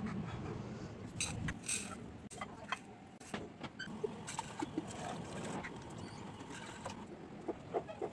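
Handling sounds around an aluminium pressure-cooker pot: scattered sharp clicks and light knocks over a steady low rumble, with a few short pitched blips near the end.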